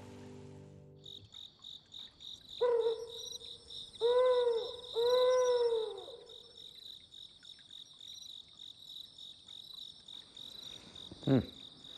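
Crickets chirping in a steady, evenly pulsing trill, with three low hoots about three to six seconds in, the last two rising and then falling in pitch.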